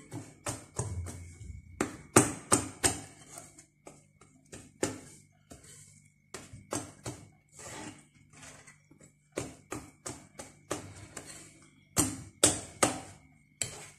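Wire balloon whisk clattering and scraping against a glass bowl while beating thick chocolate cake batter, in quick irregular strokes with louder bursts of clatter a couple of seconds in and near the end. This is the flour being mixed into the melted chocolate, butter, egg and sugar batter.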